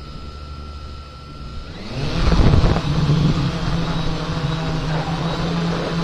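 Quadcopter drone's electric motors and propellers spinning at idle on the ground, then speeding up about two seconds in as it lifts off, settling into a steady loud buzz.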